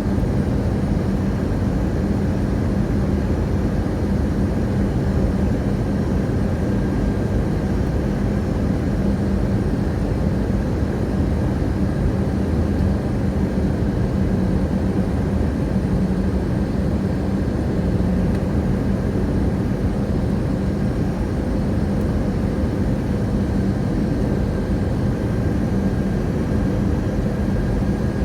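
Airplane in flight heard from inside the cabin: a steady engine drone with a constant low hum and a rushing noise, unchanging throughout.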